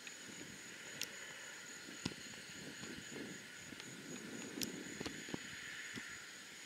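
Faint distant rumble of a C-17 Globemaster III's four turbofan engines, swelling slightly midway, under a steady high-pitched whine. Several sharp clicks stand out above it.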